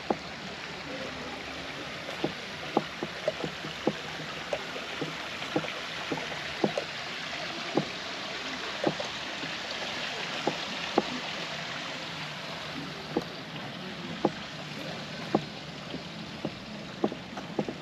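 Footfalls of someone walking outdoors, short soft knocks coming irregularly about once a second, over a steady rushing noise.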